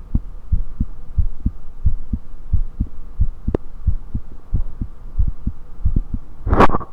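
Heartbeat heard through a USB electronic stethoscope: a steady run of low, dull thumps, often paired lub-dub beats, under a faint hum. A sharp click comes about halfway through, and near the end there is a short, loud, noisy burst, the loudest sound here.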